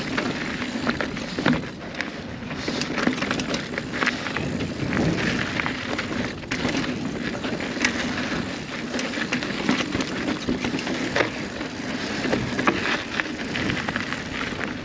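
Steel hardtail single-speed mountain bike rolling down a rough dirt trail: continuous tyre noise over dirt and rock, broken by frequent irregular clicks and knocks from the bike taking the bumps.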